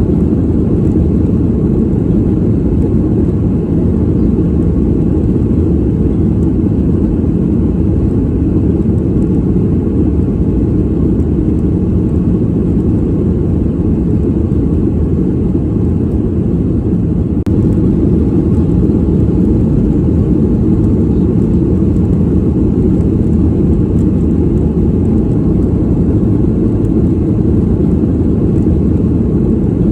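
Steady, deep rumble of a passenger airplane's cabin in flight, unchanging throughout.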